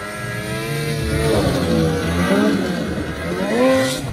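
Two-stroke mountain snowmobile engine revving hard as the sled climbs toward and passes close by, its pitch rising and falling. Loudest near the end, then dropping away.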